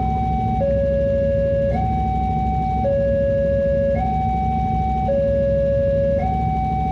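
Railway level-crossing warning alarm: an electronic two-tone signal alternating between a higher and a lower tone about once a second, meaning the barriers are down and a train is approaching. Under it runs a steady low rumble of waiting road traffic.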